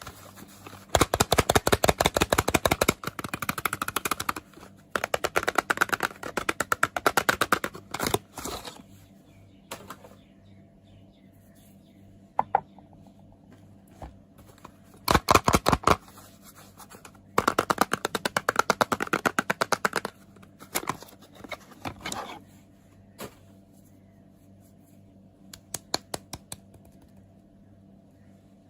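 Crackly scraping from a bar of soap and its packaging being handled, in several runs of rapid fine ticks a few seconds long, with scattered single clicks between them.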